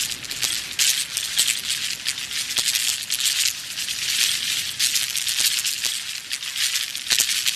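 Film sound effect of dense, high-pitched rattling and crackling made of many tiny clicks, swelling and easing several times.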